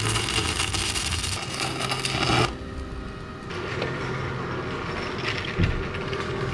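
Stick (arc) welding on steel bars: the arc crackles loudly, breaks off about two and a half seconds in, and strikes up again a second later, a little quieter.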